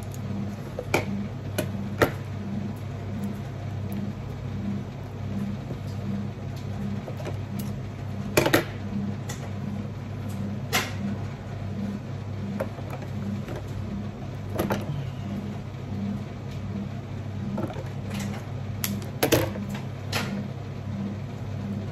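Steady low machine hum with a regular throb. Over it come scattered light clicks and rustles of flower stems and blooms being handled and pushed into an arrangement.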